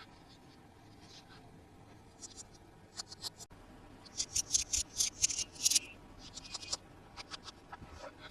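Toy packaging being handled and opened: short, crisp scratching and crinkling strokes in clusters, with a dense run about four to six seconds in.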